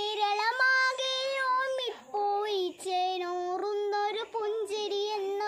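A young girl singing a Malayalam poem unaccompanied, in long held notes with short breaks between phrases.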